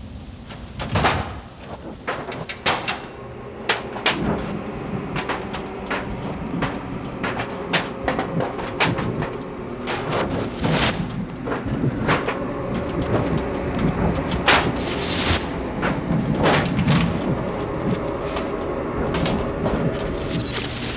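Film sound design: a string of sharp hits and clanks with several swishing whooshes, over a faint sustained drone.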